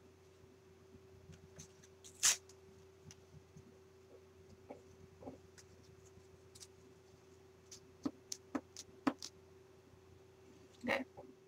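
Hands handling a feather and glue over a scrapbook page: faint rustles and light taps, a sharp knock about two seconds in, a quick run of about five clicks a little past the middle, and another knock near the end.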